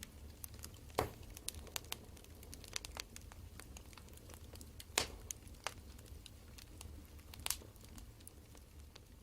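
Wood fire crackling: irregular small snaps over a low steady rumble, with a few louder pops.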